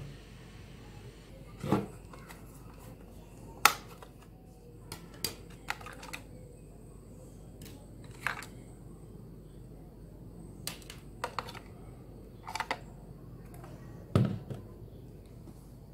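Handling noise from a Sony ICF-J40 portable radio's plastic casing: scattered clicks and knocks as it is turned over on a wooden table and its battery compartment is worked at, with a couple of duller thumps of the set against the table, about 2 s in and near the end.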